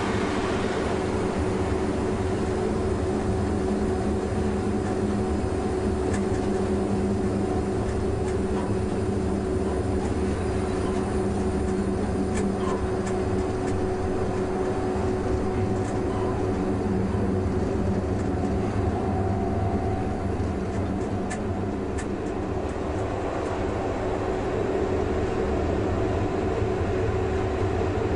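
Cab of a DB class 140 (E40) electric locomotive under way: a steady low rumble from the running gear with a constant hum from the locomotive, and a few light clicks.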